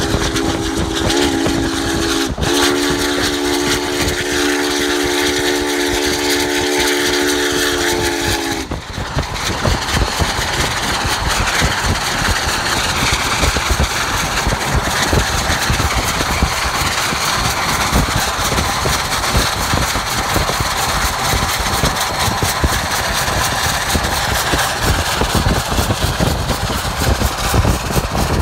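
Union Pacific 844's steam whistle blowing one long chord blast, with a brief break about two seconds in, cutting off about nine seconds in. After that comes a steady loud rush of the running train mixed with wind noise from the pacing car.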